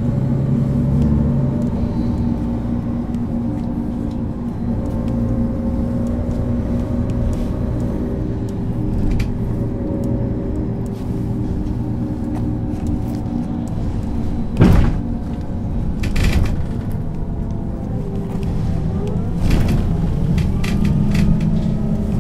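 Mercedes-Benz O 530 G Citaro articulated bus's diesel engine running steadily, heard from inside the bus, with rattles and a sharp knock about two-thirds of the way through. Near the end the engine note rises.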